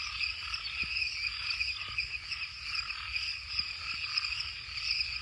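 Night chorus of frogs and insects: a steady high trilling with repeated frog calls breaking in and out throughout.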